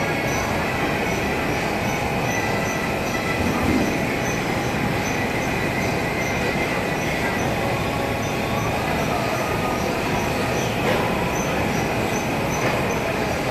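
Oil-mill machinery running steadily while a hydraulic sesame-oil press works, with squealing tones and a regular high tick about twice a second.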